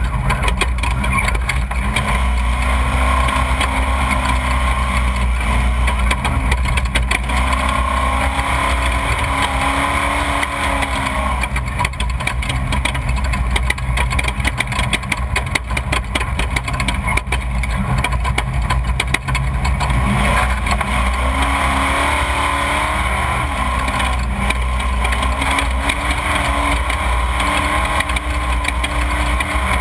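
Off-road race vehicle's engine running hard and steadily, its pitch rising and falling several times as it speeds up and eases off, over a constant rattling and rushing noise.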